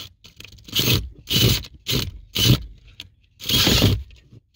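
Cordless drill run in about four short bursts, its bit grinding and scraping as it cuts through the Jeep's firewall, with a faint whine in some bursts. The insulation and plastic behind the firewall keep catching the bit.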